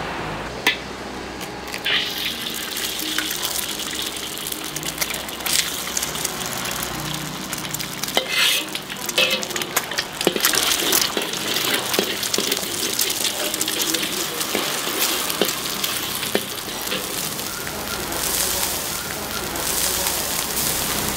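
An egg sizzling as it fries in hot oil in a wok, starting about two seconds in. A metal spatula clicks and scrapes against the wok.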